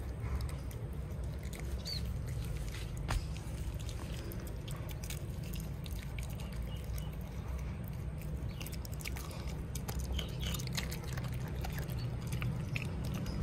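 A dog chewing and eating pieces of broccoli and carrot from a plastic bowl: scattered small wet clicks and crunches of teeth and mouth, over a steady low rumble.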